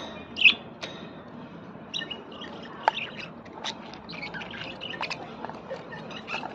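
Small birds chirping and tweeting in short, irregular high calls, the loudest about half a second in, with a few sharp clicks among them.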